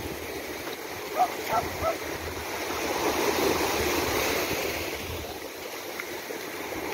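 Surf washing in and out over the sand in the shallows, swelling about three seconds in and easing off again. About a second in come three brief, high, pitched sounds.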